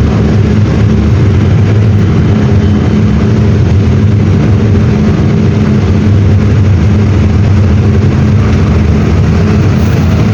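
Mercedes-Benz OF-1721 BlueTec 6 bus's OM-924 LA four-cylinder inline diesel engine running at a steady pitch, a loud even drone.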